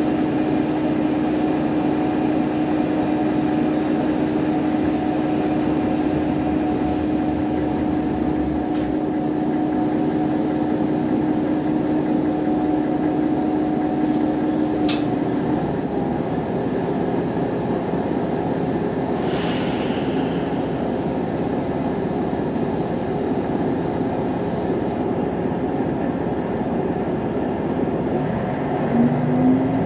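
Diesel railcar heard from inside the cabin, standing and running steadily with a clear held tone that stops about halfway. A sharp click comes at about the same moment, and a brief hiss follows a few seconds later. Near the end the engine note rises as the railcar gets under way.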